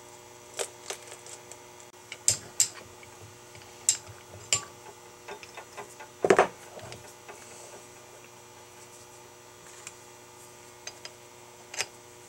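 Scattered metal clinks and knocks of steel machine-shop parts being handled as a three-jaw chuck is fitted onto a rotary table, with one heavier clunk about six seconds in. A steady hum runs underneath.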